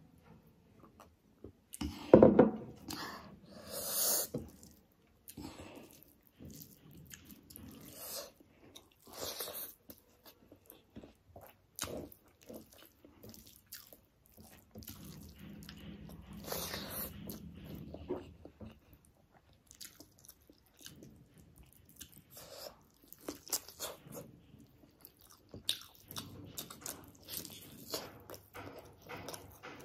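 Close-up eating sounds: chewing and biting on curried rice and a chicken leg eaten by hand, in irregular wet bursts. A loud knock about two seconds in.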